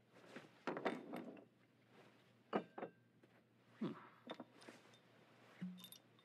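A handful of soft knocks and scrapes of small pill bottles being set down on a wooden desk and handled, spread through the quiet.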